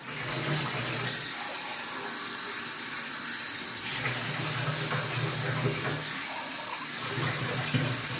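Kitchen tap running steadily, water splashing into the sink.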